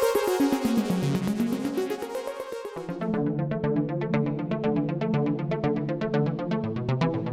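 Analog-synthesizer arpeggio: fast repeating notes whose filter sweeps up and down. About three seconds in, it changes to a new, darker pulsing arpeggio over a steady bass note, and the bass steps down near the end.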